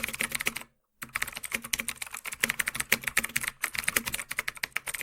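Rapid run of light clicks like typing on a keyboard, broken by a short pause just before a second in.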